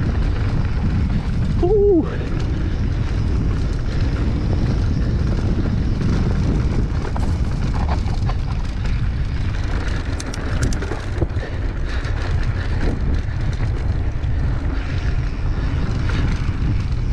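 Wind buffeting an action camera's microphone, mixed with the rumble of mountain bike tyres rolling fast over a dry dirt trail. A brief wavering tone sounds about two seconds in, and a few sharp clicks come later.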